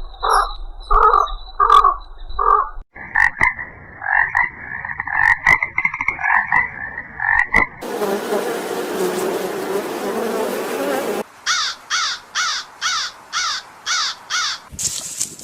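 Frogs croaking in short repeated pulses, then a denser run of calls, cut off abruptly into a stretch of steady noise, followed by a series of quick, evenly spaced falling chirps about twice a second.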